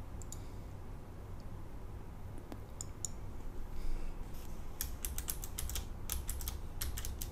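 Typing on a computer keyboard: a few separate clicks in the first three seconds, then a quick run of keystrokes from about four and a half seconds in as a field name is typed.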